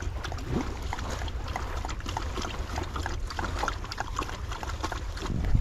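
Two dogs lapping water from a bowl: a quick, irregular run of small wet laps and splashes, over a low wind rumble on the microphone.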